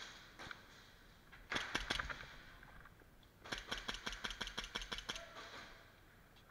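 Airsoft pistol firing rapid shots: a quick string of about six sharp cracks, then after a short pause a longer string of a dozen or so at roughly eight a second.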